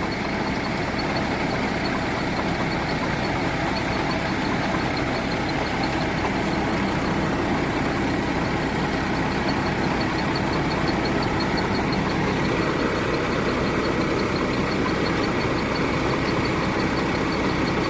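Rice-milling machinery running steadily, a continuous mechanical noise with a faint, fast, regular ticking on top.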